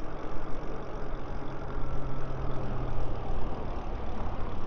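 Wind rushing over the camera's microphone and road noise from electric bikes riding at about 26 mph, with a steady low hum through the middle.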